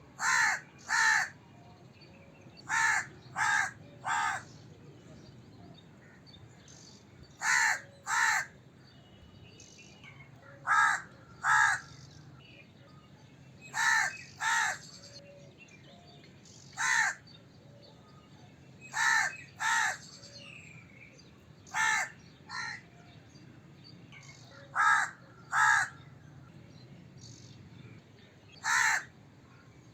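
A crow cawing: short, harsh caws mostly in pairs, once in a run of three, repeated every two to three seconds.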